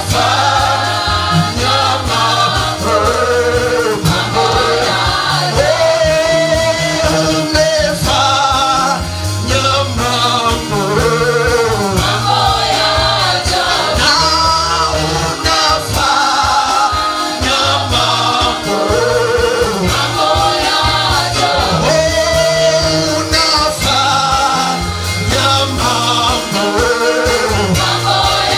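Live gospel praise-and-worship music: singers carrying a melody over a band, with a steady bass line changing note every second or two.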